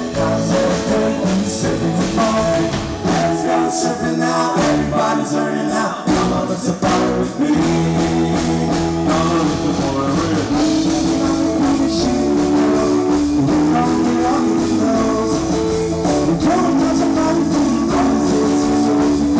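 A live band playing: several men singing over electric guitar and keyboard. The low bass drops out for a couple of seconds about four seconds in, then the full band comes back in.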